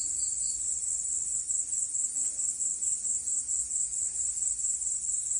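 Crickets trilling steadily, a continuous high-pitched chirring with a fast, even pulse.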